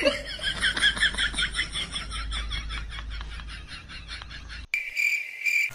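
Comic sound effect: a rapid chatter of short, high, bird-like calls, about six a second, fading over some four seconds, then a steady high-pitched beep for about a second near the end.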